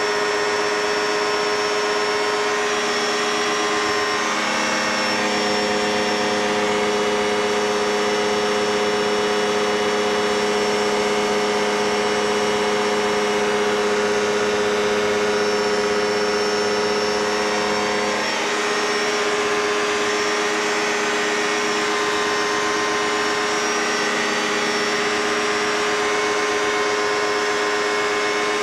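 Light single-engine propeller aircraft's engine and propeller running steadily in flight, heard from the cockpit. The engine note changes slightly about four or five seconds in and changes back about eighteen seconds in.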